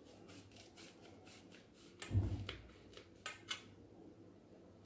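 Kitchen knife scoring set ginger barfi on a stainless steel plate: faint scrapes of the blade against the steel, a low thump about two seconds in, and two sharp clicks a little after three seconds.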